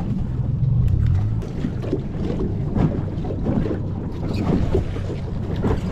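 Water slapping and lapping against a small fishing boat's hull, with wind on the microphone, as a jug line is hauled in by hand over the side. A low steady hum underneath fades about a second and a half in.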